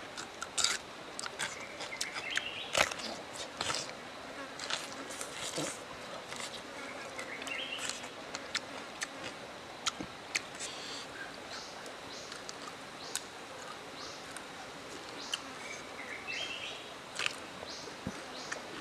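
Close-up eating sounds: biting into a green fruit and chewing grilled chicken, with sharp crunches and mouth clicks scattered throughout. Behind them, insects buzz and a short rising call sounds three times.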